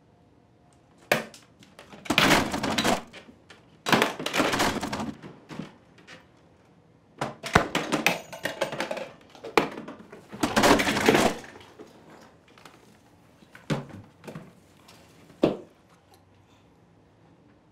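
Hands rummaging through toys and small objects on a shelf: several bursts of clattering and shuffling, each lasting about a second, then a few single sharp knocks near the end as things are set down.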